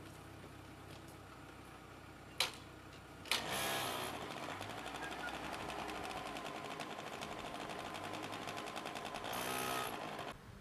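Small motor scooter engine running with a fast, even buzz. A sharp click comes about two and a half seconds in, the engine gets louder about a second later, swells near the end as the scooter pulls away, then cuts off suddenly.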